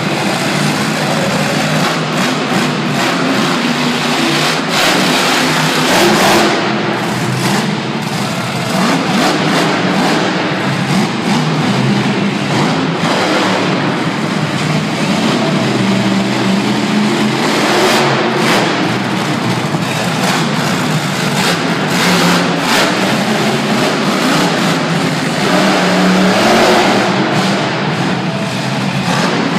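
Storm Damage monster truck's supercharged V8 engine, loud throughout, revving hard again and again as the truck runs its freestyle course, the pitch rising and falling with each burst of throttle.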